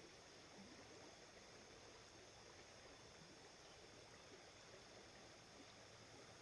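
Faint, steady sound of the Clarion River's water flowing, with no distinct events.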